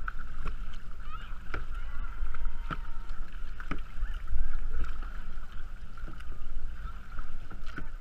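A kayak being paddled: the paddle strokes in the water, with short clicks or splashes about once a second, over a steady low rumble of wind on the microphone.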